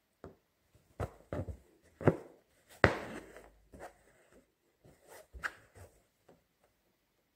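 Hand embroidery on fabric stretched taut in a hoop: a string of short taps and scratchy rasps as the needle pierces the cloth and the thread is drawn through it. The loudest comes a little under three seconds in, with a brief rasping tail.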